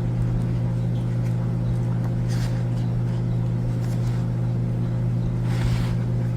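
A steady low hum, with two faint brief rustles about two and a half and five and a half seconds in.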